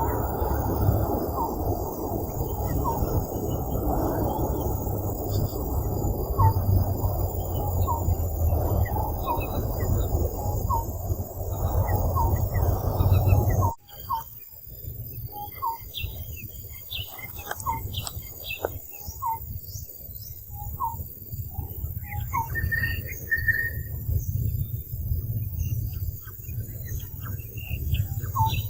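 Outdoor ambience with short, high chirping calls repeating about once a second over a low rushing noise. About halfway through, the rushing noise cuts off abruptly, leaving quieter scattered chirps and clicks.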